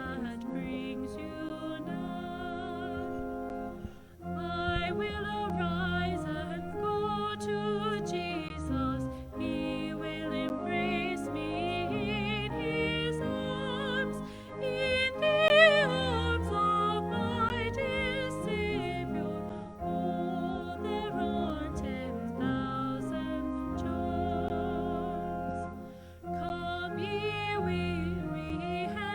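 A hymn sung by a classically trained voice with strong vibrato over sustained instrumental accompaniment, with short breaths between phrases and the loudest, highest note about halfway through.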